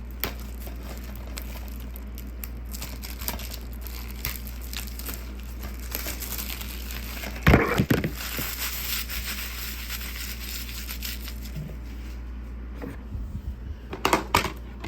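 Plastic crinkling and rustling as a DVD case is handled, with a louder crackle about seven and a half seconds in and a few sharp clicks near the end.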